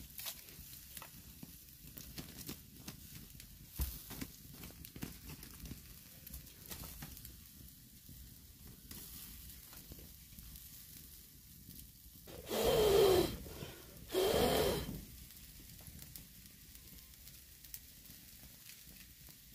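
Wood fire and hot embers crackling faintly with small scattered pops, and frog-meat skewers sizzling over the coals. About twelve seconds in, two loud pitched sounds of about a second each stand out, a second apart.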